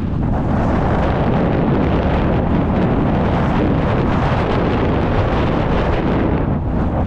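Mountain bike riding fast down a rough trail: steady wind rush on the microphone over tyre rumble, with constant small rattles and knocks from the bike on the rough ground.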